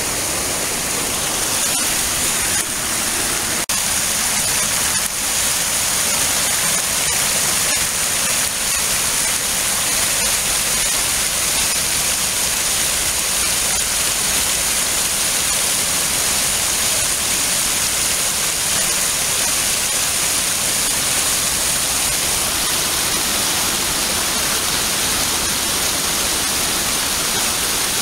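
River water rushing over rocks in a shallow rapid: a steady, unbroken rush.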